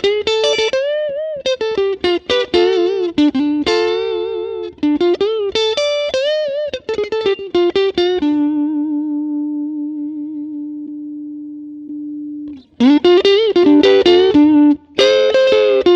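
Harley Benton SC-DLX Gotoh electric guitar with Tesla split-coil pickups, played with a clean tone through a Hotone Ampero One modeller. It plays single-note lead phrases with string bends and vibrato, then a long held note that slowly fades from about halfway in, then a loud, fast run near the end.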